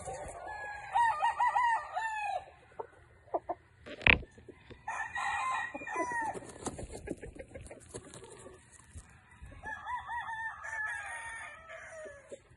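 A gamecock crowing three times, each crow about four seconds after the last, with a single sharp knock between the first and second crows.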